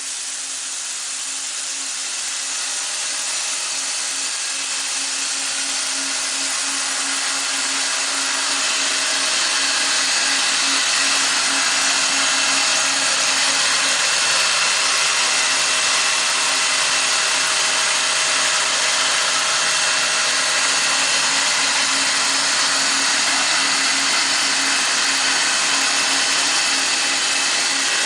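Mitsubishi 110H1 wire EDM machine running a turned-down rough cut under low flush: a steady, loud hiss from the wire cutting, with a steady low hum underneath. It grows louder over the first ten seconds, then holds.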